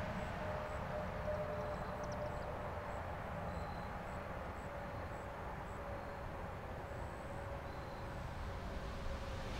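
Distant outdoor warning siren sounding one steady tone that slowly swells and fades, over a low rumble.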